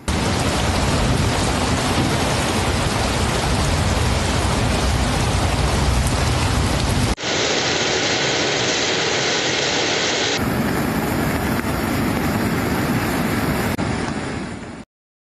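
Loud, steady rushing noise of a rainstorm and floodwater pouring through a street canal. It plays as three joined clips, with abrupt cuts about seven and ten seconds in, and stops suddenly near the end.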